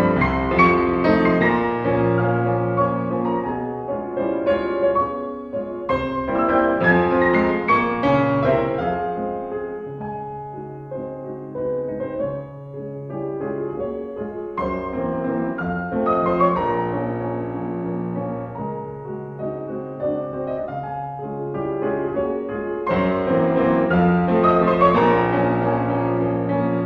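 Piano music laid over the footage, in phrases that swell and fade, quieter in the middle.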